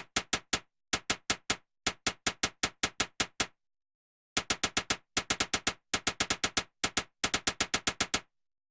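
Typewriter keys clacking in short bursts of several strokes each. After a pause of about a second there is a longer, faster run of keystrokes, which stops near the end.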